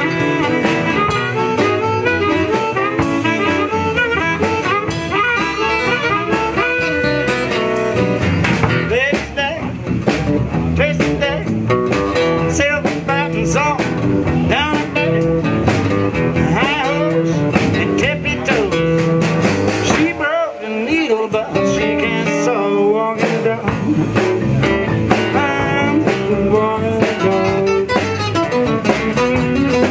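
Live acoustic blues: two acoustic guitars and a drum kit, with a harmonica played into a hand-held microphone. The low end thins out for a few seconds about twenty seconds in.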